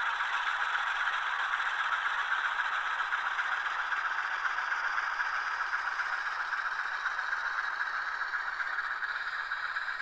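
HO-scale ALCO C-420 model locomotive running along the track, its LokSound 5 sound decoder playing a clattery diesel engine sound through the model's small speaker, together with a steady rattle. It grows a little fainter near the end.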